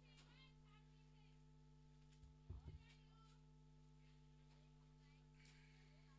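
Near silence: a faint steady electrical hum, with a few faint distant chirps and a soft low thump about two and a half seconds in.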